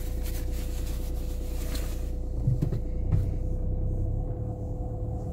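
Car moving slowly, heard from inside the cabin: a steady low engine and road rumble with a faint steady hum, and a couple of soft low bumps about halfway through.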